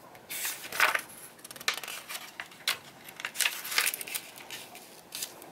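Pages of a spiral-bound Nicholson canal guide being leafed through over a paper map: a series of short paper rustles and crinkles with sharp clicks and taps.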